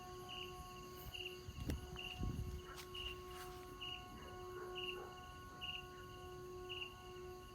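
Vietnamese kite flute (sáo diều) of the 'train whistle' type, sounding a steady, layered drone of several tones at once. Over it a short high pulsed chirp repeats about once a second, and a couple of low thumps come about two seconds in.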